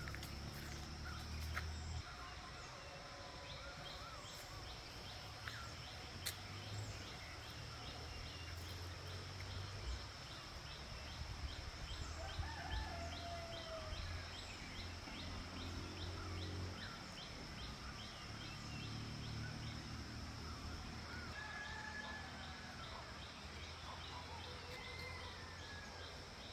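Rural outdoor ambience: scattered bird calls over a steady high-pitched hum, with a fast, even chirping of about three chirps a second through the first half.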